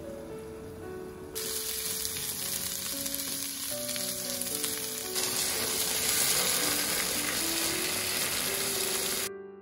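Food sizzling in hot oil in a frying pan, over background music. The sizzle starts about a second and a half in, gets louder about halfway through and cuts off abruptly near the end.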